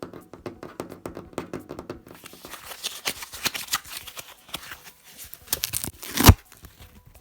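Dense crinkling and crackling with some tearing, thickening from about two seconds in, with one loud sharp crack a little past six seconds.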